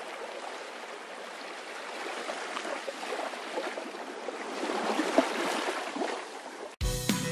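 Running water with small splashes and trickles, a steady rush that grows slightly louder. It cuts off suddenly near the end and music with bell-like chimes starts.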